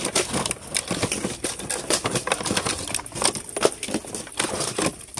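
Small Halloween lanterns clinking and clattering against one another as they are rummaged through and picked out, a quick run of sharp clicks throughout.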